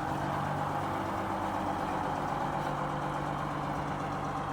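Detroit Diesel engine of a 1958 GMC PD-4104 Greyhound bus running steadily.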